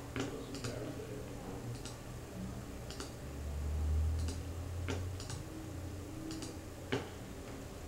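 Computer mouse clicking: about ten short, sharp clicks at irregular intervals as drop-down menu items are picked. A low rumble runs about three to five seconds in.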